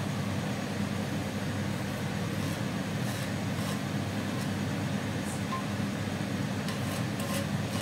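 A steady fan hum, with a few faint light ticks of a silicone spatula against a nonstick frying pan, about three seconds in and again near the end.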